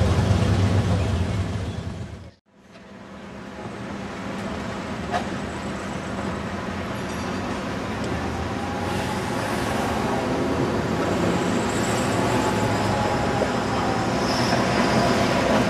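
Street traffic noise, then, after a brief dropout about two seconds in, a red New Orleans Canal Street streetcar approaching along its tracks, its sound growing steadily louder as it nears the stop.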